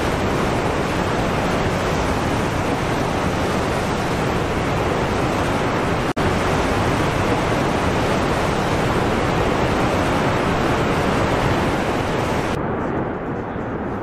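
Steady rush of water pouring over Niagara's Horseshoe Falls: a dense hiss over a deep rumble. It breaks off for an instant about six seconds in, and near the end it turns duller as the high hiss falls away.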